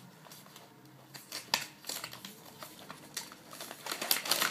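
Plastic blister packaging and a cardboard sleeve being handled and pulled apart: scattered clicks and crinkles, sparse at first and busier toward the end.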